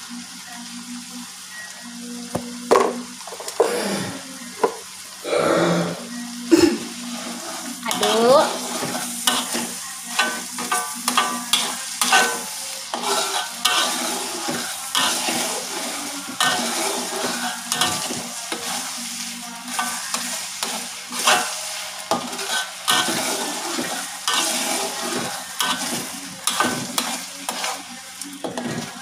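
Ground chili paste sizzling as it fries in oil in an aluminium wok, with a spatula scraping and knocking against the pan many times as it is stirred.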